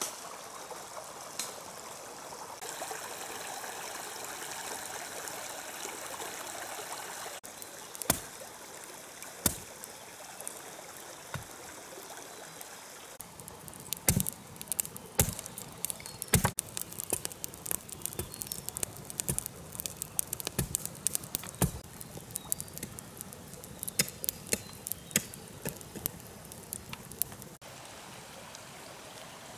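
Steady rush of a small stream, with the sharp pops and cracks of a wood fire burning. The pops are scattered at first, grow dense through the middle and stop a couple of seconds before the end.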